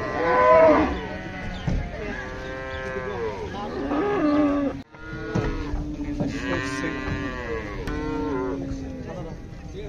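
Cattle lowing again and again, several long, overlapping calls, the loudest one right at the start.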